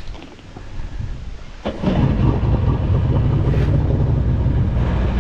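Engine of a 1996 Sea-Doo GSX personal watercraft, a two-stroke twin, catching at the starter button about a second and a half in and then running steadily at low speed. Before it starts, only light wind and water noise is heard.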